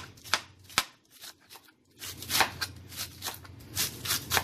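Chef's knife chopping cabbage on a cutting board: a quick run of crisp knife strikes through the leaves onto the board, a pause of about a second, then steady chopping again at a few strokes a second.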